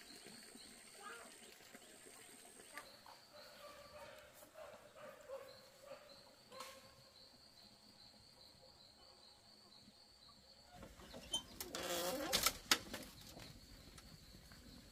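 Faint outdoor ambience with a high chirping that pulses a few times a second. About eleven seconds in there are two seconds of louder rustling and scuffing with a few sharp knocks.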